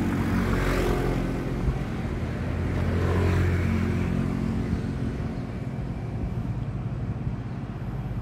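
Road vehicle engine running with a low steady hum that swells about three seconds in and eases off after, as a small truck passes along the road beside the tracks.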